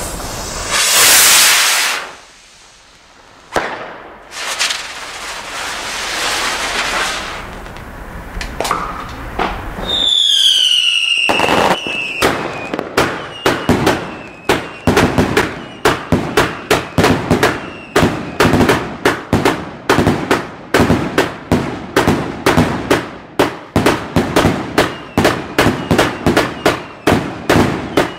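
Firework rocket hissing as it lifts off, followed by a longer spell of hissing from its spinning sun-whirl effects and a falling whistle about ten seconds in. From about twelve seconds on comes a long, even run of sharp bangs, about two to three a second.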